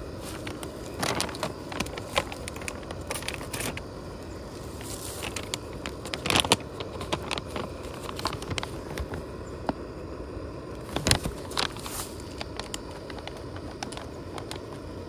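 Scattered clinks, taps and scrapes of metal camp cookware being handled: a diffuser plate, pot and pan being set up on a camp stove. The clinks come irregularly over a steady low background rush, with the loudest clusters about six seconds in and again near eleven seconds.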